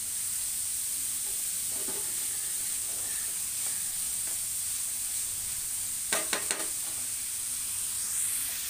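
Chopped onions sizzling in hot oil in a stainless steel frying pan, stirred and turned with a wooden spatula: a steady frying hiss as the onions soften. A short clatter about six seconds in.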